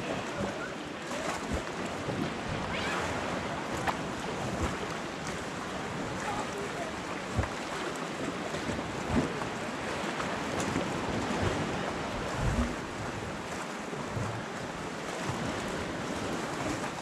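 Small sea waves washing against shoreline rocks, a steady rushing wash, with wind buffeting the microphone and a few brief low bumps.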